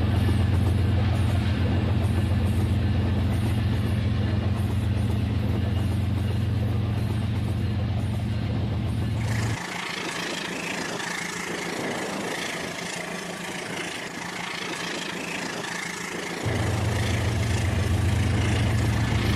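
Rail King toy train running with a steady low motor hum. About halfway through the hum drops away for several seconds while a higher hiss takes over, then the hum comes back.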